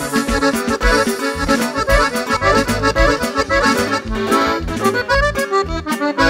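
Live norteño band playing an instrumental break between sung verses, led by a button accordion over acoustic guitar, electric bass and drums keeping a steady beat.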